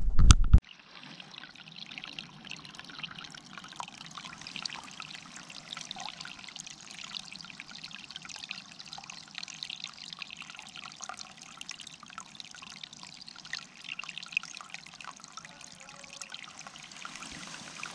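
A brief loud low rumble cuts off at the very start, followed by a steady trickling and splashing of running water.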